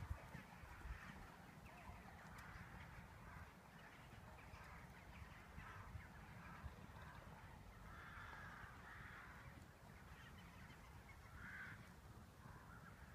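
Near silence: faint outdoor ambience with a few distant bird calls.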